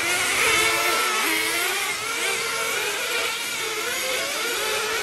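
Several radio-controlled glow-engine (nitro) cars racing, their small two-stroke engines revving up and down with overlapping, wavering pitches.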